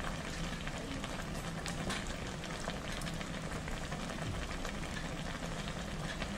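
Hot pot broth boiling steadily in a large steel pot: an even bubbling hiss with faint small crackles.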